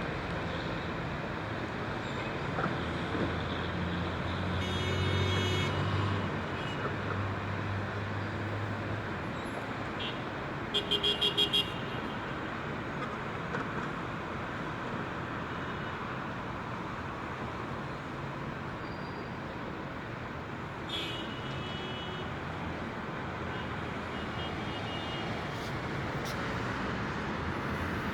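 Steady road traffic noise with a vehicle passing, and several short horn toots; the loudest is a quick run of four beeps about eleven seconds in.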